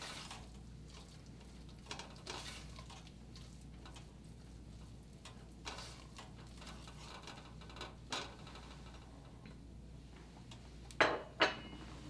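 Silicone spatula stirring a thick, stiff sugar sauce in an enamelled cast-iron pot, with occasional soft scrapes and knocks against the pot. Two sharper knocks come near the end.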